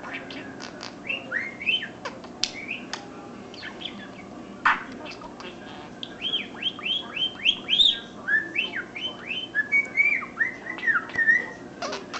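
Pet budgerigar chattering and warbling. Scattered sharp clicks come first, then about halfway through a fast run of short, rising-and-falling whistled notes.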